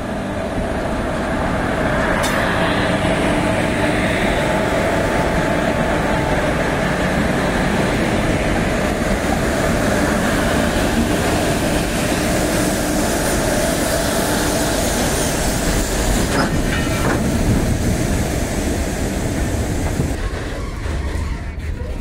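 Two WAG-7 electric freight locomotives passing close by at the head of a heavily loaded freight train, running with a loud, steady hum over the rumble of the wheels. Loaded open wagons then roll past on the rails, slightly quieter, near the end.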